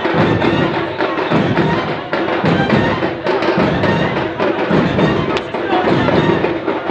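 Large crowd of men chanting together over a thumping beat, about two beats a second.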